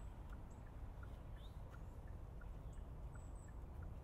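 Faint outdoor ambience: a steady low rumble with distant birds chirping, and a faint high peep repeating about two or three times a second.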